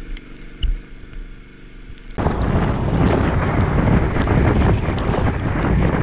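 Wind buffeting the camera microphone on a moving motorcycle, over a low rumble of engine and road. About two seconds in it jumps abruptly to a much louder, steady rush.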